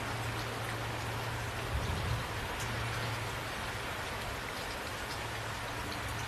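Steady rain falling and pattering on surfaces, with a steady low hum underneath.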